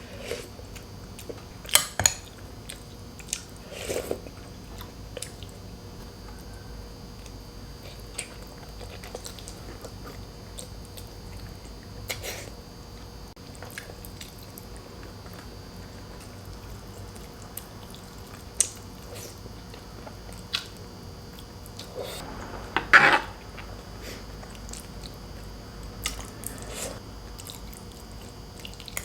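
Close-up eating sounds: chewing and biting on boiled pork hock and rice, with scattered sharp clicks and one louder burst about three quarters of the way through.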